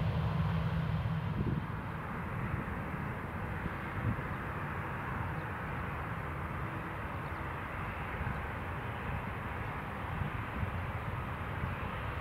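Jet airliner noise outdoors: a heavy low rumble drops off suddenly about a second and a half in, leaving a steady hiss of distant jet engines.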